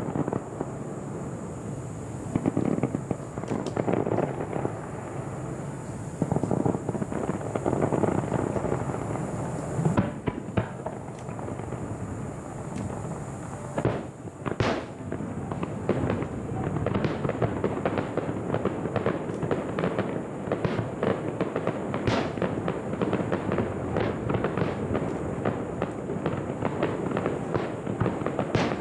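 Aerial fireworks display: a dense, continuous crackling of many small bursts, with a few louder single bangs standing out, about ten, fourteen and twenty-two seconds in.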